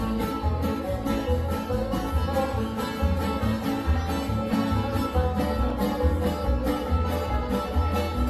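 Live acoustic bluegrass jam: fiddle, strummed acoustic guitars and plucked upright bass playing together, with a steady bass beat under the melody.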